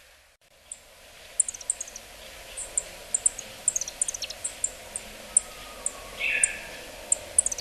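Yellow-throated bunting calling: short, very high notes, some single and some in quick falling runs of three or four. A brief, louder, rougher lower sound comes about six seconds in.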